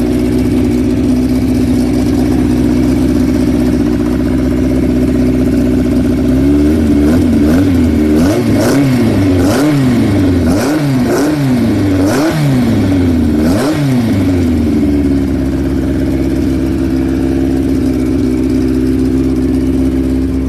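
TRD 152E dry-sump four-cylinder race engine breathing through twin Weber carburettors, idling steadily after its start. About six seconds in it is revved in a quick run of about eight throttle blips, each rising and falling in pitch, then settles back to a steady idle.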